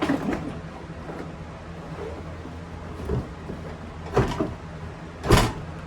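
A few sharp knocks and clunks, the loudest near the end, over a steady low hum.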